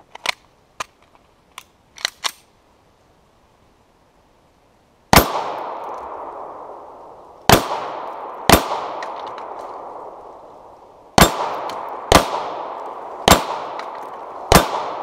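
A few light clicks, then seven shots from a 9mm Beretta 92FS pistol starting about five seconds in, spaced one to two and a half seconds apart. Each shot has a long echoing tail.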